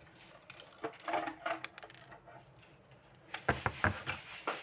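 Hard plastic casing and parts of a thermal receipt printer knocking and clattering as they are handled, with a light rattle about a second in and a run of about five sharp knocks near the end.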